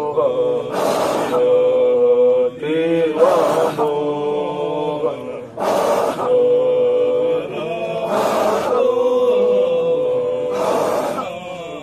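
Sufi dhikr chanting: a religious refrain sung in long held notes, with short pitch bends between phrases and a breathy hiss about every two and a half seconds.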